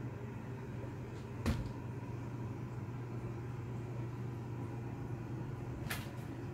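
A steady low hum with two short clicks, one about a second and a half in and one near the end.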